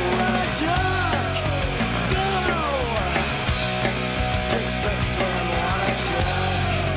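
Loud punk rock music with distorted guitar, bass and drums, a bending lead line over the top.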